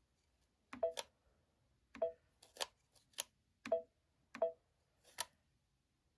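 Touchscreen of a Brother Stellaire Innov-is XE1 embroidery machine giving short key beeps as a stylus taps it, four beeps interleaved with about four sharp taps of the stylus on the screen.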